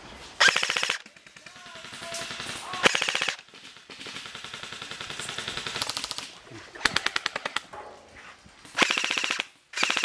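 Airsoft rifle firing short full-auto bursts of BBs, each a rapid, even rattle of about half a second; there are about five loud bursts, with fainter rapid firing between them.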